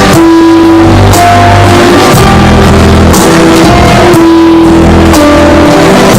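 Loud instrumental music with guitar, bass and drums, held notes under cymbal hits about once a second, with no singing.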